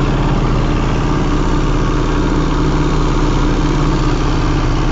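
A boat's engine running steadily at an even pitch, with a hiss of water rushing past the hull.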